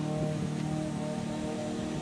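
Background music, a steady stretch of sustained notes.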